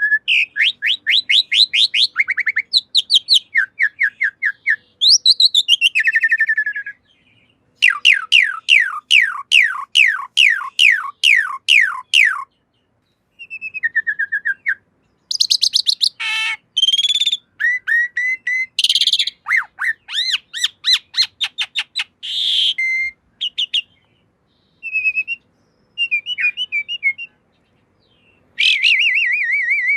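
Javan pied starling (jalak suren) singing: long runs of quickly repeated whistled notes that each slide downward, broken by harsh squawky calls and short pauses.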